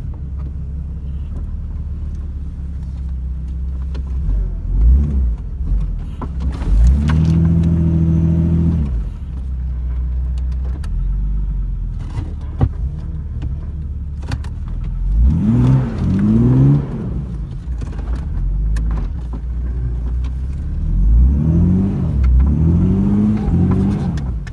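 Vehicle engine running steadily, held at raised revs for about two seconds, then revved up and down in quick rising-and-falling bursts twice more, as it pulls a stuck SUV over a sand dune on a recovery strap.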